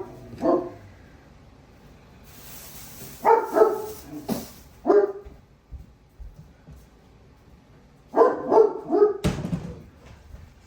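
A dog barking in short bursts of two or three barks, several times over. A hiss a couple of seconds in and a single knock near the end.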